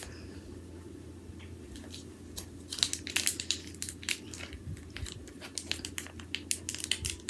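Plastic dog-treat packaging crinkling and crackling as fingers pick at it to get the treats out. It is quiet for the first two seconds, then a quick run of crackles and clicks follows. The packaging is tough to open.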